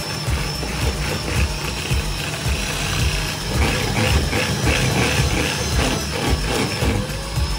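A small electric motor running steadily, with background music playing over it.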